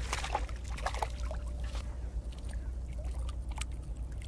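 Hooked mackerel splashing at the surface beside a kayak, with water sloshing and dripping, busiest in the first second and then a few lighter splashes. A steady low rumble runs underneath.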